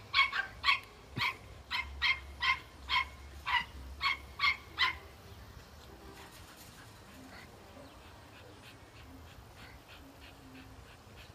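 Dog barking at a goat in a rapid, high-pitched string of barks, about two a second. After about five seconds the barks grow much fainter but keep going.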